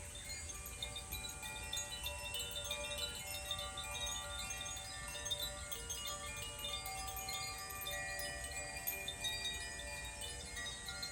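Hand-played tuned healing wind chimes ringing: a steady stream of light strikes, each note sustaining and overlapping the next into a shimmering cluster of tones.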